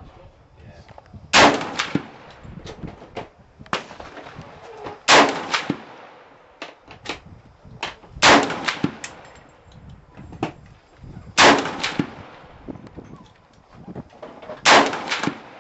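A .308 G3 rifle firing five single shots, one about every three seconds, each with a short echo. Fainter sharp sounds come between the shots.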